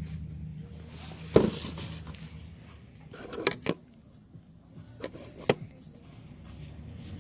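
A few sharp clicks and knocks from the plastic and metal parts of a paintless dent repair kit's pulling clamp being handled and fitted, the loudest about a second and a half in. A faint low hum fades out about two seconds in.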